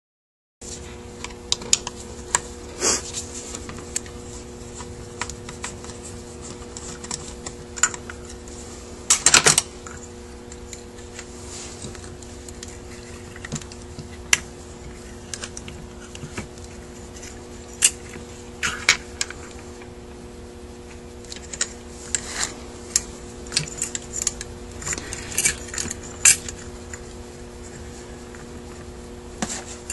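Small metal parts of a Rochester Quadrajet carburetor clicking and tapping as they are handled during teardown, with irregular light clicks and a louder cluster about nine seconds in. A steady low hum runs underneath.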